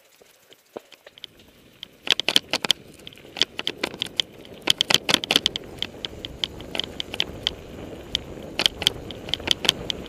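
Mountain bike rattling over a rough dirt trail: an irregular clatter of sharp clicks from the bike's chain and frame, with a rush of wind noise on the helmet camera. Both grow much louder about two seconds in as the bike picks up speed.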